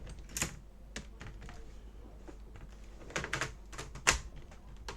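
Plastic case clips of an HP 15-n278sa laptop clicking and snapping loose as the shell is pried apart with pry tools: an irregular scatter of sharp clicks, the loudest about four seconds in.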